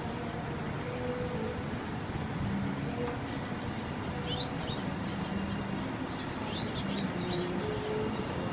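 Small birds giving short, high, sharp chirps: two or three about four seconds in and a quick run of four a couple of seconds later, over a steady low background hum.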